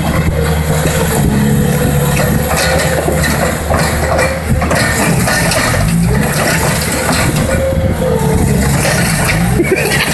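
Bobcat T300 compact track loader's diesel engine working under load as its bucket pushes against a palm trunk, the engine pitch rising and falling, with repeated knocks and clanks from the tracks and bucket.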